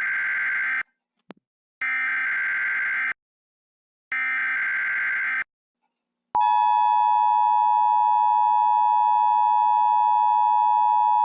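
Emergency Alert System tones: three one-second bursts of the SAME digital header about a second apart, the first already under way at the start. About six seconds in, the steady two-tone EAS attention signal begins and holds.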